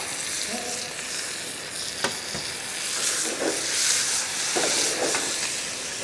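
Abalone liver and trimmings sizzling in hot oil in a pan with vegetables and anchovy, being stirred. There is a single sharp knock about two seconds in.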